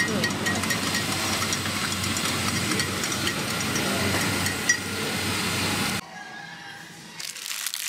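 Steady, dense background din of a busy coffee-shop drinks stall, with a brief clink about five seconds in. About six seconds in it drops suddenly to a much quieter hush.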